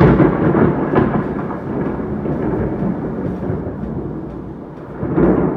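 Thunder rumbling in long rolls. It is loudest at the start, with a sharper crack about a second in, then dies down and swells again near the end.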